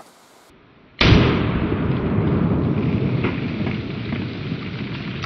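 A single shot from a Dan Wesson Supermag revolver in .357 Remington Maximum about a second in, sharp and very loud, followed by a long rumble that slowly fades.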